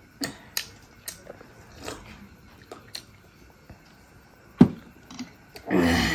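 Close-up eating sounds: soft clicks of chewing, lip smacks and fingers working rice on plates. About four and a half seconds in comes a single sharp knock as a glass mug is set down on the table. Near the end there is a brief voice.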